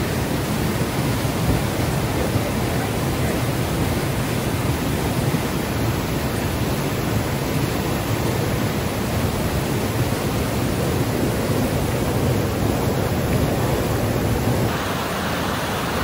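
Waterfall about 15 m high pouring down: a steady, loud rush of falling water, a little hissier in the last second.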